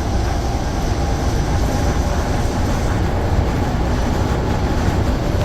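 Steady running noise heard inside a driverless, rubber-tyred automated people mover train as it travels between stations: an even, constant rumble.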